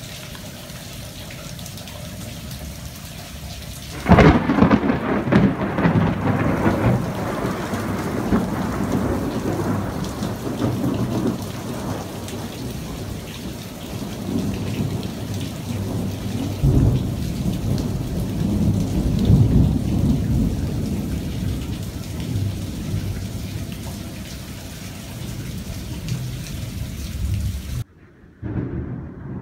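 Thunderstorm: steady rain with thunder, a sudden loud clap about four seconds in that rumbles on and fades over several seconds, and another long roll of thunder past the middle.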